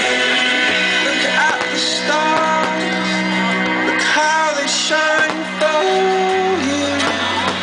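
Pop-rock music with a singing voice and guitar, played loud over a sound system.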